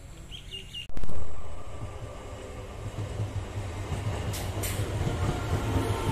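A short bird chirp, then an Eastern Railway EMU electric local train passing close by: the sound starts abruptly about a second in and the wheels and coaches rumble, growing louder. Two short hisses come about four seconds in.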